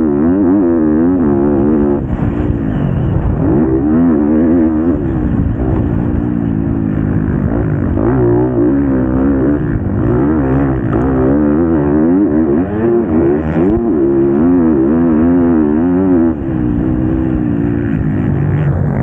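Motocross bike engine heard close up from on the bike, revving up and down over and over as the rider works the throttle and shifts through the gears, with brief drops when the throttle comes off.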